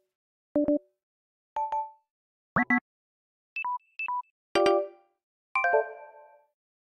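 A run of smartphone low-battery alert sounds from Samsung and Sony phone interfaces, one after another about a second apart. There are short two-note tones and chirps, a high-then-low beep pair played twice, and chimes, the last one ringing out longest.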